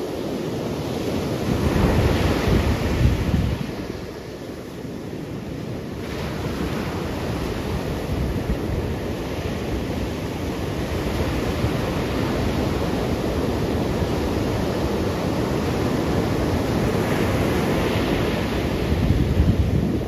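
Ocean surf breaking and washing up a sandy beach: a continuous wash of water, with louder surges about two seconds in and again near the end.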